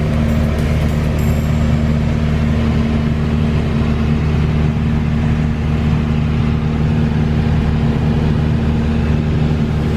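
Small plane's engine droning steadily in flight, heard from inside the cockpit, an even low hum with a constant pitch.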